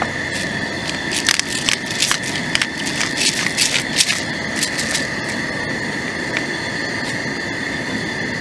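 Pepper grinder grinding black pepper over a pot of kimchi stew, a quick run of sharp clicks and crackles from about a second in until about five seconds. Under it runs a steady background with a constant high buzzing tone.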